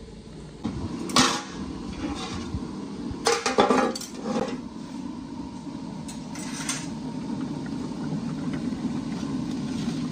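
A few sharp clinks and knocks of kitchen pots and utensils in the first half, then a large pot of broth boiling hard with a steady bubbling that grows louder toward the end.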